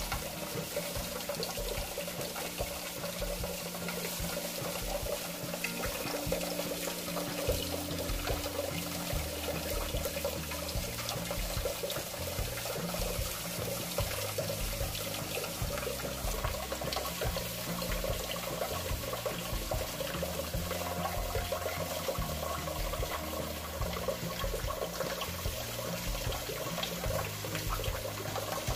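Kitchen tap running in a thin, steady stream, splashing onto a plate in a stainless steel sink. From about seven seconds in, music with low held notes plays underneath.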